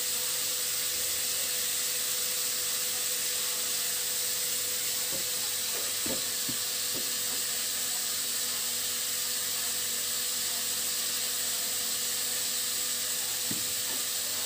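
Chunks of beef searing in a pot over a gas flame: a steady sizzling hiss, with a few faint knocks about five to seven seconds in and again near the end.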